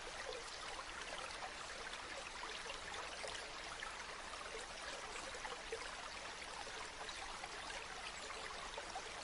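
Stream water running steadily, an even rush with many small splashes and bubbles.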